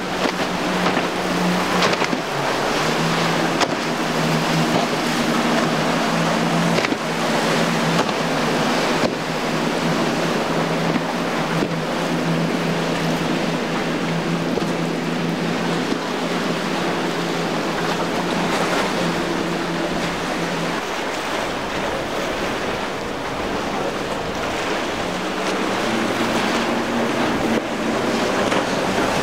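Outboard motors of center-console boats running at speed, a steady engine hum under the rush of wind and splashing, choppy water. The engine note fades about two-thirds through and a different one comes in near the end as another boat passes.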